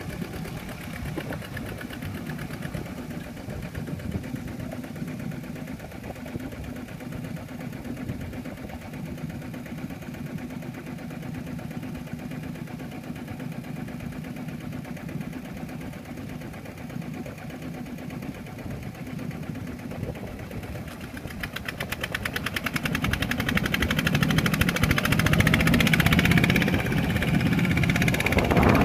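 Kubota RT120 walking tractor's single-cylinder diesel engine running at a low, steady chug, then speeding up and getting louder about three quarters of the way through as the tractor is driven forward through deep mud.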